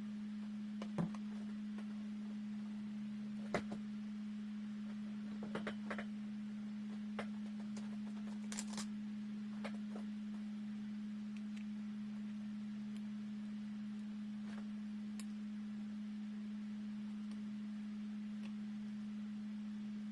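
A steady low electrical hum, one unchanging tone, with scattered light clicks and taps over the first half, the loudest about a second in and again after three and a half seconds.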